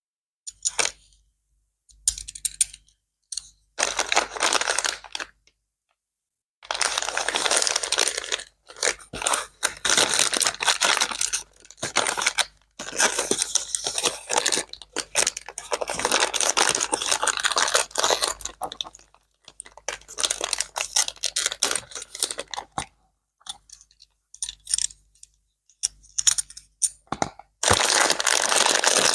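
Packaging being opened and handled: repeated bursts of crinkling and tearing, some several seconds long, with short pauses between them.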